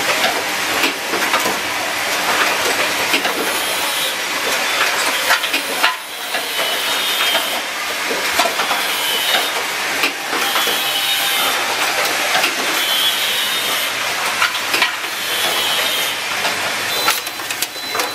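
Automatic switch assembly machine running: a continuous mechanical clatter of pneumatic grippers and cylinders and small metal parts, with frequent sharp clicks and a short hiss about every two seconds.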